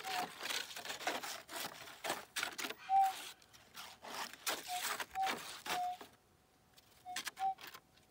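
Metal detector's faint steady threshold tone with several short, louder beeps at the same pitch, over irregular scraping and crunching that stops about six seconds in and briefly returns near the end.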